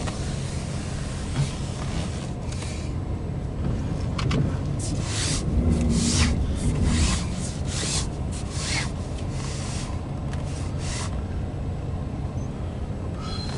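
Low steady rumble of a Union Pacific intermodal freight train crossing a steel trestle, heard from inside a car. A run of short hissing swishes comes through the middle.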